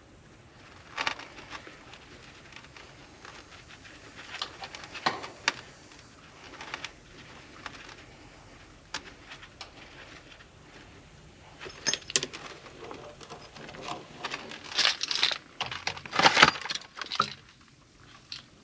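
Scattered metallic clicks and clinks of hand tools working copper refrigerant tubing at a heat pump's service valve, sparse at first and busier and louder in the last few seconds.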